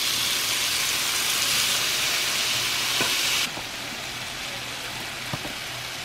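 Chicken tenders sizzling as they fry in olive oil in a skillet, a steady hiss that drops to a quieter level about three and a half seconds in. A couple of light clicks are heard over it.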